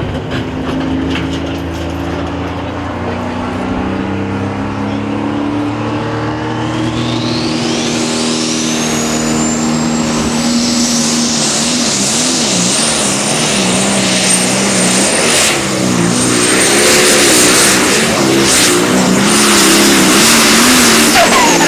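Turbocharged John Deere super stock diesel pulling tractor under full load on a pull. The engine builds, then a high turbo whine rises over about three seconds and holds at a steady scream while the engine note wavers up and down. Near the end the whine cuts off and the pitch falls as the throttle comes off.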